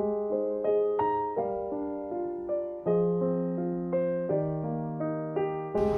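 Soft solo piano background music: a slow melody of single struck notes, each dying away, over low held bass notes.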